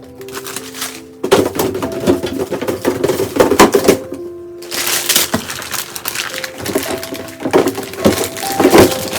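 Rapid clattering and knocking of hard objects in two long runs, the loudest sound, over soft background music.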